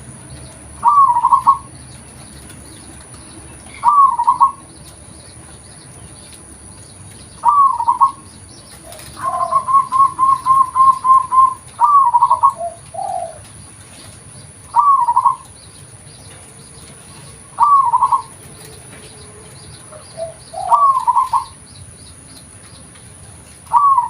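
Zebra dove (perkutut) cooing: short, loud phrases repeated roughly every three seconds, with one longer run of about ten quick even notes near the middle.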